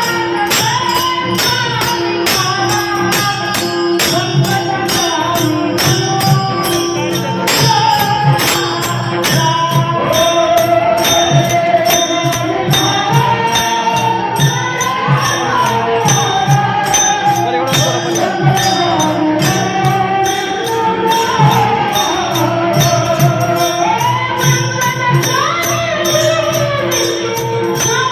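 Devotional bhajan singing: a singer carries a gliding melody over a steady held drone, with a steady beat of jingling metallic percussion strikes.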